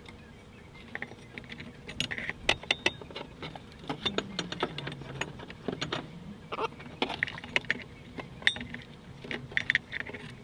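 Scattered light clicks, taps and rattles of small parts as hands unfasten and lift a rubber and plastic connector piece out of the engine wiring, the engine off.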